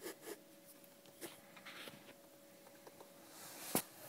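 Faint rustling and small clicks, with one sharp click near the end, over a faint steady hum.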